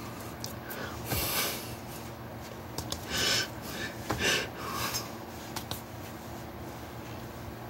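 Steady low electrical hum under short hiss-like noises of breath and of hands and clothing moving, as a person gestures with their hands without speaking. The strongest come about a second in and around three and four seconds in.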